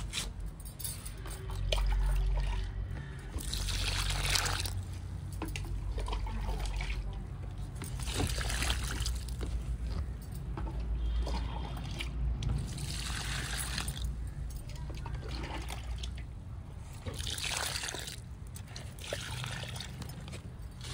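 Liquid fertilizer poured from a plastic bucket onto the soil of grow bags, trickling and splashing in several short pours a few seconds apart, over a low rumble.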